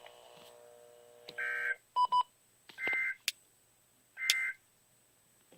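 Three short bursts of EAS SAME digital data tones, two pitches warbling together, each about half a second long and a little over a second apart: the end-of-message code that closes a NOAA Weather Radio required weekly test. A quick double beep and a click come between the bursts.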